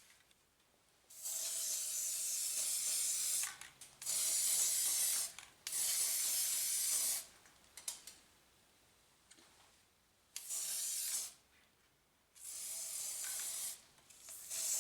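Aerosol can of gold spray paint hissing in about six short bursts of one to two seconds each, with quiet gaps and a few faint clicks between.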